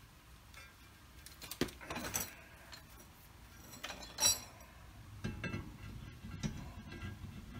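Cast-iron brake rotor being handled and fitted over a wheel hub's studs: metal clinks and scrapes, the sharpest knock about four seconds in as it meets the hub, then several lighter knocks as it is seated.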